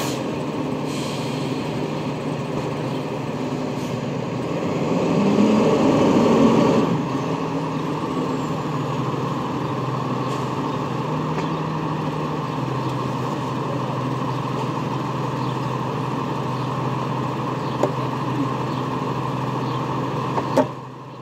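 Rear-loading garbage truck's engine running steadily, swelling louder for a couple of seconds about five seconds in as the truck pulls forward. A single sharp knock near the end.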